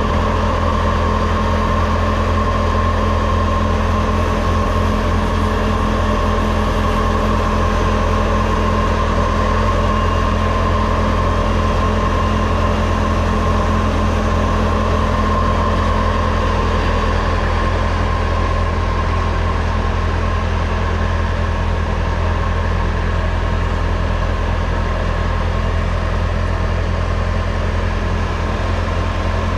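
Bobcat skid-steer's diesel engine and snow blower attachment running steadily under load, a constant deep engine hum with a higher whine from the blower.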